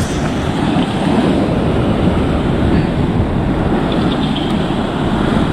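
Steady rushing wind and sea noise, an even roar with no distinct events.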